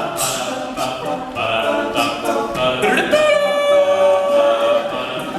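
All-male a cappella group singing a wordless instrumental break, voices layered in harmony with a held high note in the middle, over short, sharp vocal-percussion hits.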